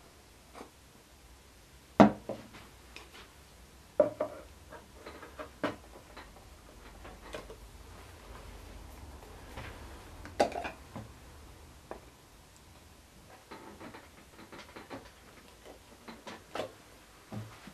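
Scattered knocks, taps and clicks of wooden fins being handled and pushed into the fin slots of a plywood surfboard. One sharp knock about two seconds in is the loudest.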